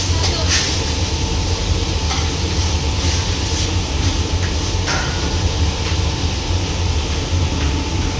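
Steady low rumble with a few light clicks and knocks scattered through it.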